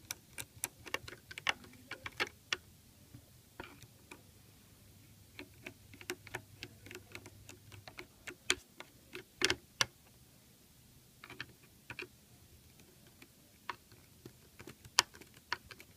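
Hand screwdriver turning small screws into the plastic end cap of a Fluke 435 power quality analyzer: a run of sharp, irregular light clicks in clusters with short pauses between them.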